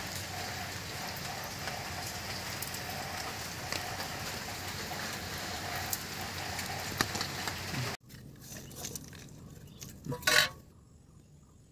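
Steady rain falling on wet ground for most of the stretch. It cuts off abruptly about eight seconds in to a much quieter background, broken by one short, loud burst of noise a couple of seconds later.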